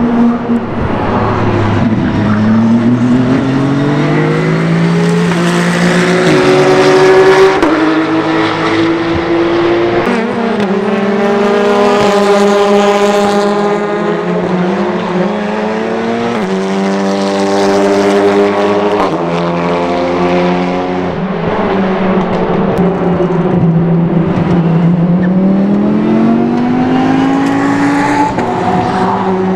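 GT3 and TCR race car engines accelerating hard. The pitch climbs and then drops sharply at each upshift, again and again, as several cars pass one after another.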